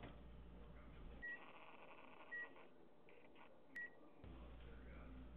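Microwave oven keypad beeping three times, short single-tone beeps a second or so apart.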